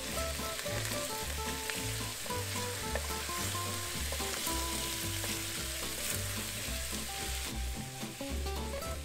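Chicken wings sizzling in a stainless steel pot while being stirred with a wooden spoon. The hiss eases off somewhat near the end.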